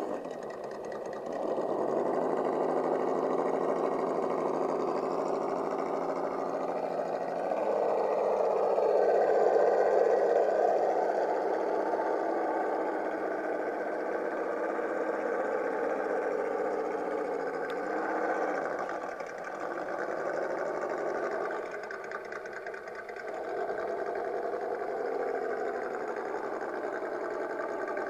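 Electric motor and gearbox of an RC scale crawler whining as it creeps along, the pitch rising and falling with the throttle, with a louder stretch about a third of the way in and short dips in pitch later on.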